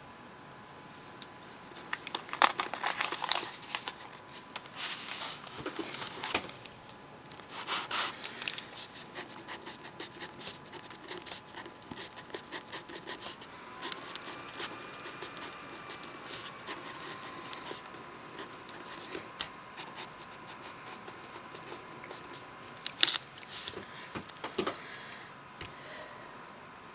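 A pen writing on lined notebook paper: a run of small scratching strokes, with a few louder rustles of the paper near the start and again near the end, and one sharp click a little past the middle.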